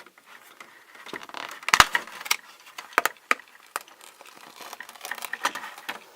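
Plastic and cardboard toy packaging crinkling and crackling in irregular bursts as a doll is worked out of its box, with a louder snap a little under two seconds in.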